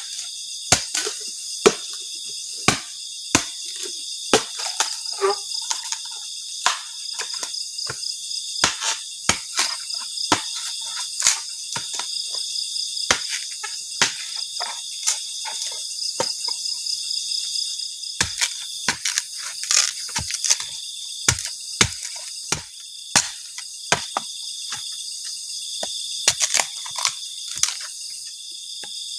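A steady, high insect chorus with a fast pulsing shimmer, over many sharp, irregular knocks and snaps, some in quick clusters.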